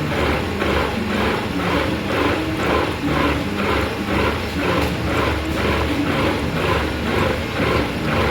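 Metal lathe cutting into a heavy steel gear: a steady low hum under a regular clatter about three times a second.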